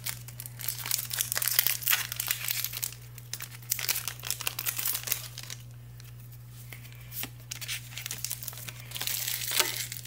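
Foil wrapper of a mini Pokémon booster pack crinkling and tearing as it is ripped open and handled, in a run of short crackles with a quieter stretch about six seconds in.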